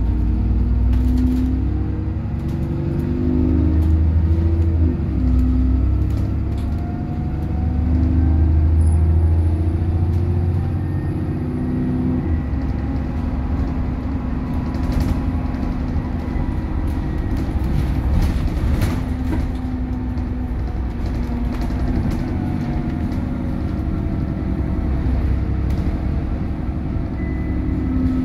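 Alexander Dennis Trident 2/Enviro 400 double-decker bus driving, heard from inside the passenger saloon: the diesel engine's low note rises and falls as the bus pulls away and changes gear, with a changing whine above it and interior rattles. It settles into a steadier run after about twelve seconds.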